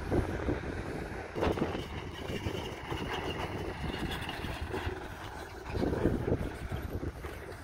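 Diesel engines of a dump truck and a tracked excavator running, with wind buffeting the microphone in gusts, strongest about six seconds in. A single short knock comes about a second and a half in.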